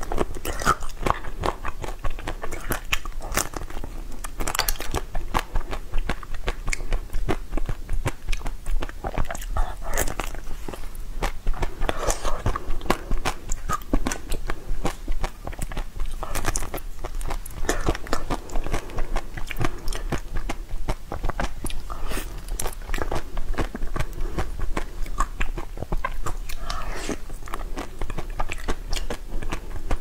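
Close-miked biting and chewing of a green-skinned, yellow-fleshed fruit: many sharp crunching bites and chews coming in quick, irregular runs.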